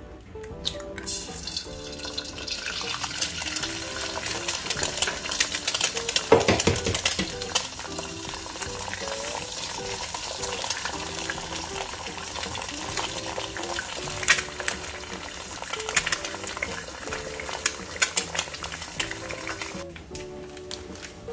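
Eggs frying in hot oil in a nonstick pan: a steady sizzle full of small crackling pops, loudest about six seconds in. The sizzling stops shortly before the end.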